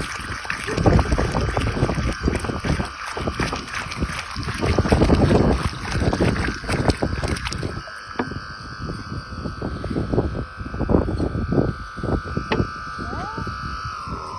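Solar-powered submersible fountain pump giving a steady high whine while it is not yet pumping water. Loud low rumbling and knocking sit over it, heaviest in the first half.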